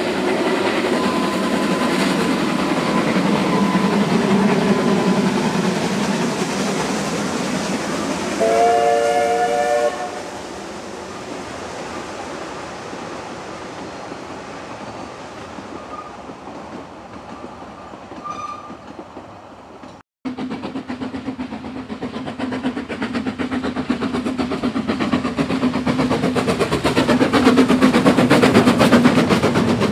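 Narrow-gauge steam train running past, its wheels and carriages clattering, with its steam whistle sounding once for about a second and a half about a third of the way in. After a sudden cut about two-thirds through, a standard-gauge steam locomotive is heard instead, growing louder toward the end.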